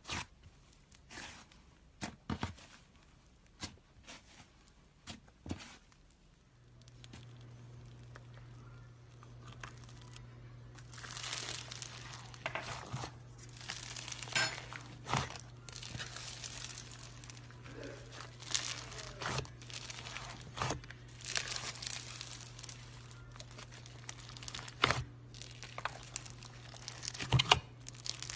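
Slime being worked by hand, giving crackling, popping squishes: sparse clicks and pops at first, growing dense from about ten seconds in. A steady low hum starts about six seconds in.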